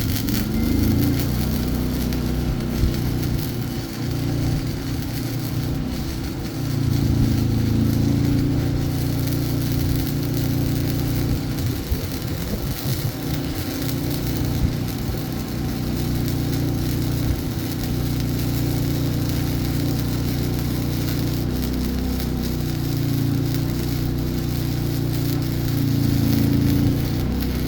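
Flux-core wire welder arc crackling and sputtering steadily over a low hum while welding up a billet of stacked 1095 steel and copper.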